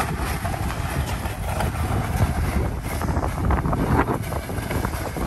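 Wind buffeting the microphone: a loud, gusting low rumble that rises and falls unevenly.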